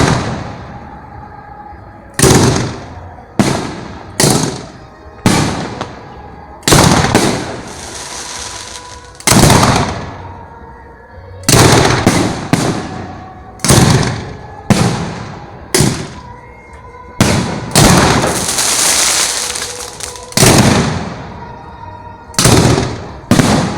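Fireworks at close range: a string of sharp, loud bangs roughly one to two seconds apart, each dying away quickly. Twice a burst is followed by a couple of seconds of crackling hiss.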